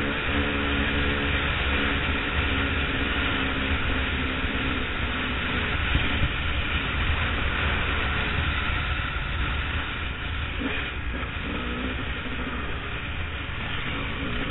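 Honda CR250 two-stroke dirt bike engine running at a steady cruise, heard from on the bike, under a heavy rush of wind on the microphone. The engine note eases off slightly about two-thirds of the way through.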